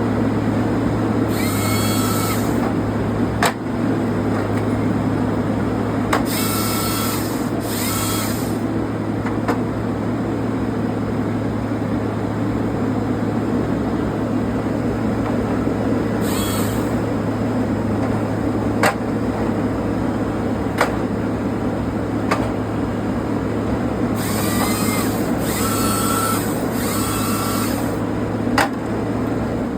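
Old Timbco timber processor with a Vamet 415 head at work: the engine drones steadily under the hydraulics, with several bursts of high hiss and whine, each about a second long, from the processor head as it works the logs. A few sharp single knocks are scattered through.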